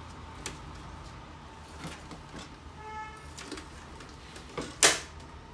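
Plastic cover of an HP LaserJet 1020 Plus laser printer being pressed onto the chassis: light handling knocks, then one sharp snap near the end as a locking tab clicks into place.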